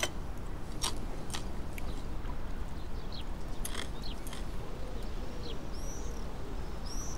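Small birds chirping in short, high, arched calls, more often in the second half, over a steady low outdoor background, with a few light clicks in the first two seconds and again around four seconds in.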